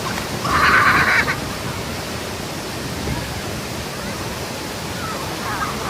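Waterfall rushing steadily. About half a second in there is a brief, louder, higher sound lasting under a second.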